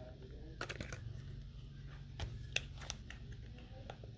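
Fingers working at a makeup palette's case to get it open: a few sharp plastic clicks and small scrapes, some in quick pairs, with no steady rhythm.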